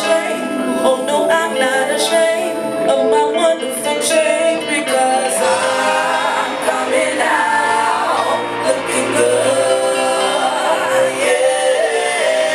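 Live band playing with drums, electric bass and guitar, and a woman singing gliding, drawn-out vocal lines over it.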